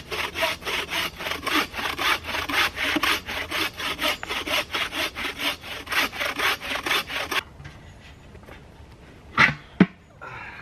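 Bow saw cutting through a dead, damp Scots pine log in quick, even back-and-forth strokes, about three or four a second, stopping about seven seconds in. Two sharp knocks follow near the end.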